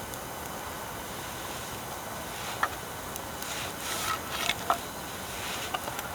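Wood fire crackling: a steady hiss with a few sharp pops, one about two and a half seconds in and a cluster around four to five seconds in.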